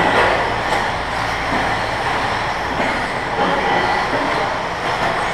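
Radio-controlled 2wd buggies racing on an indoor dirt track: a steady mix of electric motor whine and tyre noise, with a few sharp knocks from the cars.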